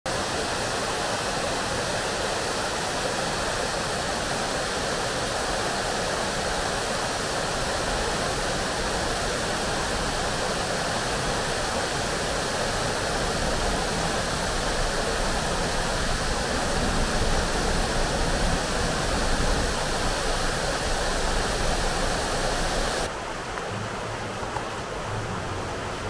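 Water of an 'upside-down' waterfall fountain splashing and rushing in a steady stream. About 23 seconds in it suddenly becomes quieter and duller.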